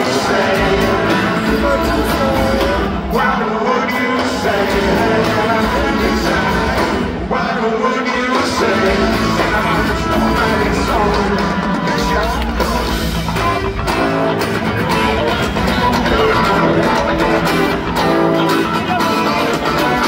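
Live rock band playing through a concert PA, heard from among the audience: acoustic guitar, bass and drums in a steady groove.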